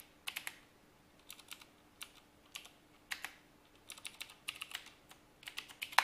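Computer keyboard keys pressed in short, irregular runs of clicks, a few keystrokes at a time with brief pauses between.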